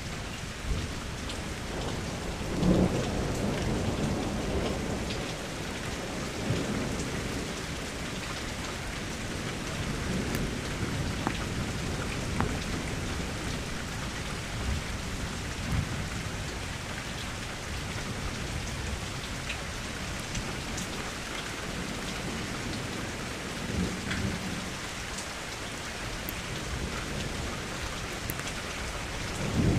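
Steady rain falling, with low rolls of thunder that come and go several times, the strongest about three seconds in and another right at the end.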